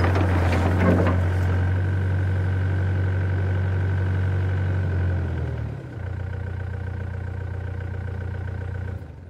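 Excavator's diesel engine running steadily, with a few sharp knocks in the first second or so. About five and a half seconds in the engine drops to a lower, quieter idle, and the sound fades away near the end.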